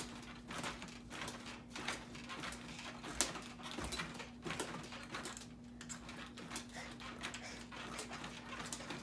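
Faint thumps of a child bouncing on a small kids' mini trampoline with a handlebar, at an uneven rhythm of roughly two bounces a second, over a steady low hum.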